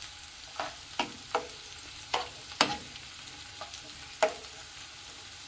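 Chopped onion sautéing in oil in a nonstick frying pan: a steady sizzle, with a metal spoon scraping and tapping against the pan about seven times as the onion is stirred, the loudest stroke about halfway through.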